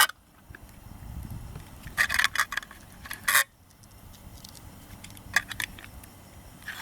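Sharp metallic clinks and scrapes of a tin can's lid being worked open with the pliers of a Swiss Army knife, several distinct clinks, the loudest about two and three seconds in.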